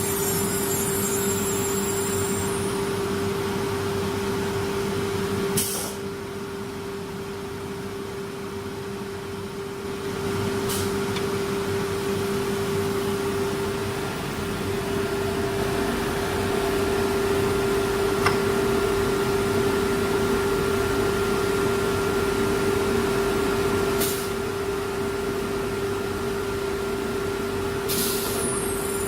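CNC wood router running: a steady spindle whine over a broad rush of machine noise. It drops quieter for a few seconds about a fifth of the way in, and a few short sharp clicks are heard at intervals.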